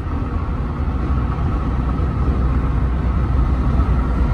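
Steady road and engine rumble of a moving vehicle, heard from inside the cabin.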